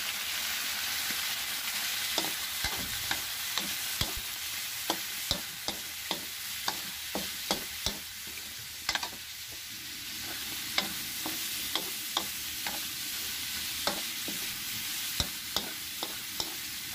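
Pork and water spinach (kangkong) stalks sizzling in a frying pan with a steady hiss, while a utensil stirs them, clacking and scraping sharply against the pan about once or twice a second.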